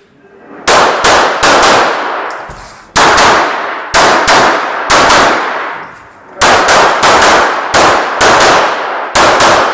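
Glock 34 9mm pistol firing a rapid IPSC course of fire: very loud shots, mostly in quick pairs with short pauses between, each with a ringing echo.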